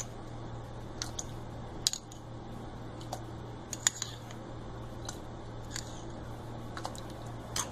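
Metal spoon clicking against a ceramic bowl and saucepan as saffron milk is spooned into a pan of milk: about eight sharp, irregular clinks over a steady low hum.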